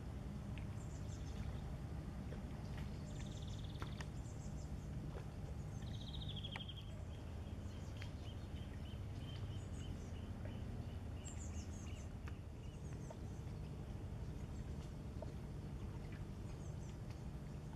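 Small birds chirping and trilling over a steady low rumble; about six seconds in, one trill runs on as a long series of rapid notes for several seconds.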